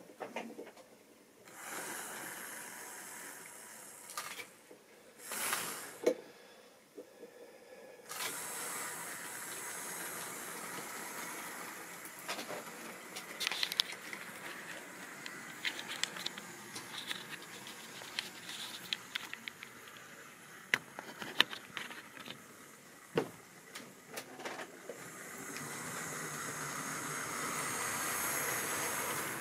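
Tri-ang model railway trains running on the layout's track: a steady rushing hiss of the wheels and motors with scattered small clicks and rattles as the stock passes over the rail joints and points. The sound swells over the last few seconds as a train draws closer.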